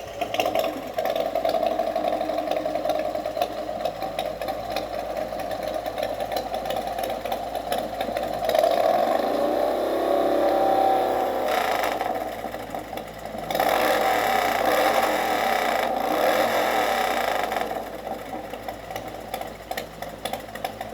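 A vehicle engine running steadily, growing louder for a few seconds twice, about halfway through and again a little later.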